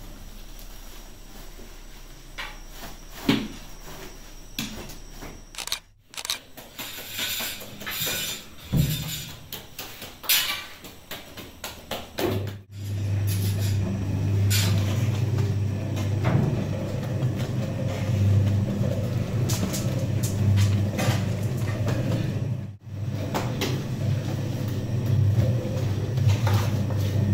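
An electric trough dough mixer running with a steady, loud hum as it kneads a batch of Sangak dough, starting about halfway in. Before that come scattered knocks and rustling as flour is handled into the trough.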